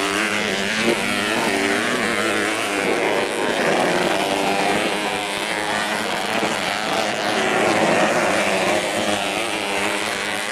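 Engines of several modified underbone race motorcycles revving at racing speed, their overlapping pitches rising and falling as riders work the throttle.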